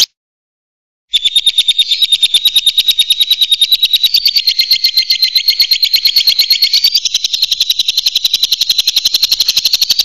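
Lovebird giving a long, rapid chattering trill (the 'ngekek' call): a fast, even run of high, sharp chirps at more than ten a second, starting about a second in and continuing without a break.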